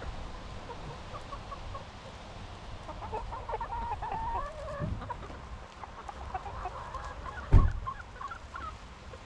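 Chickens clucking, with a softer knock about five seconds in and a sharp thump late on, the loudest sound.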